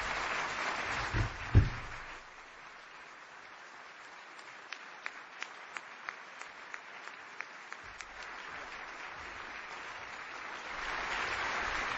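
Audience applauding, with a single low thump about a second and a half in. The applause then thins to lighter clapping with scattered sharp clicks and swells again near the end.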